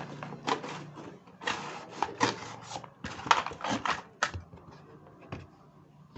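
Toy packaging being handled and opened: a quick run of clicks, taps and scrapes for about four seconds, then only a few faint taps.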